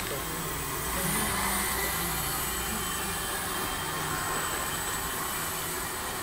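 Small electric motors and propellers of several indoor RC model planes flying at once, a steady buzz with faint tones that shift up and down as throttle and distance change.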